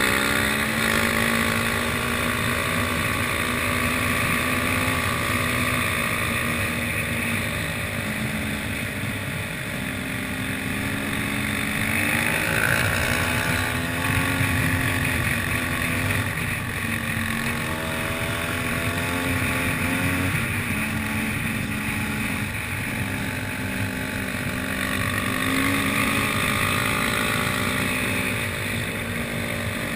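Enduro motorcycle engine running under way on a gravel track, its revs rising and falling with the throttle several times.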